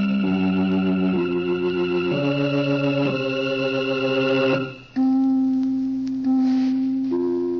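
Organ music bridge from a 1940s radio drama: held chords changing about once a second, then after a brief drop, three sustained notes that each start sharply and slowly fade.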